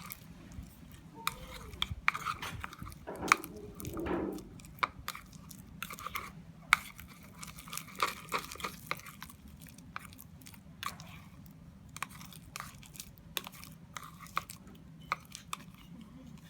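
Homemade slime being handled and scraped out of its container, giving irregular sticky clicks and small crackling pops, with a few louder snaps.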